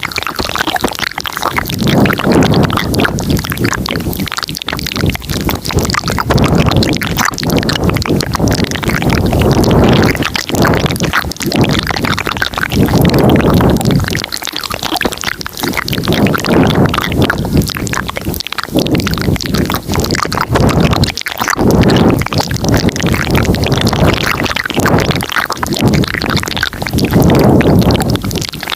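Layered ASMR mouth sounds made close to the microphone, swelling and fading about every two seconds with dense clicking throughout.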